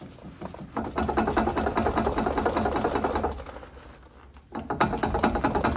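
Land Rover Series III rear half-shaft being worked back and forth by hand in its hub, a rapid metallic rattling in two spells with a short pause between. The shaft is binding as it is pulled, probably broken at its splines inside the differential.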